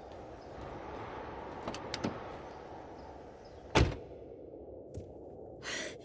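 Car door clicking open about two seconds in, then the driver's door shutting with one loud thump that cuts off the open-air background. A woman's breathy sigh follows near the end.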